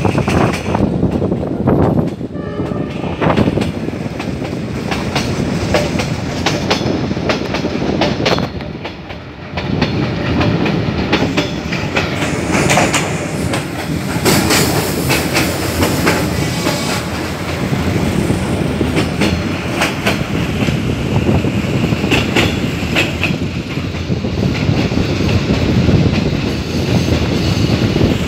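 Vietnamese SE5 passenger train running, heard from on board at an open carriage window: a continuous rumble of the carriage with wheels clicking over rail joints.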